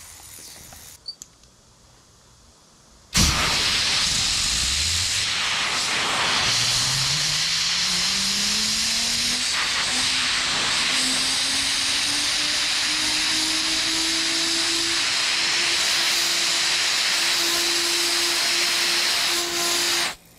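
Compressed air from an air-compressor blow gun hissing against a toy gyroscope's rotor, starting suddenly about three seconds in and cutting off just before the end. Under the hiss, the rotor's hum rises steadily in pitch as it spins up, then levels off at a high speed.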